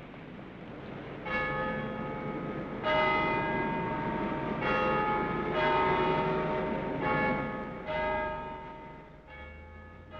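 Church bells ringing: about seven strikes at changing pitches, roughly a second or so apart, each ringing on and overlapping the next.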